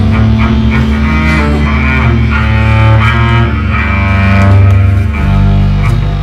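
Cello played live, bowed low notes held under a layered line of higher tones; the bass note changes about five seconds in.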